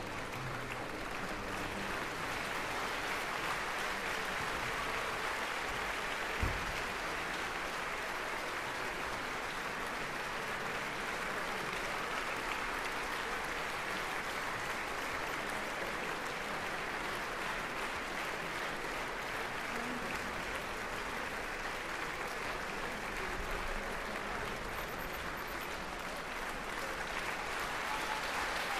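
Audience applauding steadily. A single short thump sounds about six and a half seconds in.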